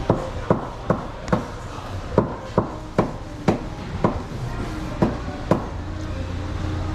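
A run of about a dozen sharp knocks, roughly two a second and unevenly spaced, that stop about a second before the end, over a steady low hum.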